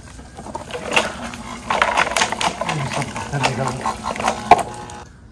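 A man's voice mumbling, no clear words, over clicks and knocks from a plastic submersible sump pump being handled and lifted, with one sharp knock near the end.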